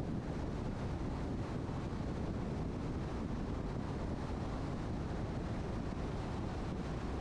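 Steady road and wind noise of a car travelling at highway speed: an even low rumble with hiss, unchanging throughout.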